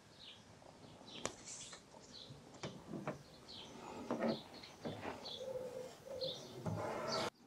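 Crinkling and rustling of a large vinyl decal sheet and its backing paper being handled against a car body panel, with a few sharp taps, and small birds chirping in the background. A longer crinkle near the end cuts off abruptly.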